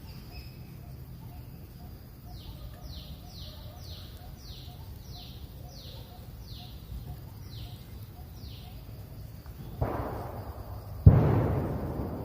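Two firecrackers bursting near the end, a loud bang followed by a louder one, each with a long fading rumble. Before them comes a run of about ten short falling whistles, evenly spaced.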